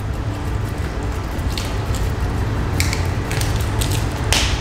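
Caribbean spiny lobster tail shell crackling and snapping as the cracked tail is peeled out of it by hand: a few sharp cracks spread over the stretch, the loudest near the end, over a steady low hum.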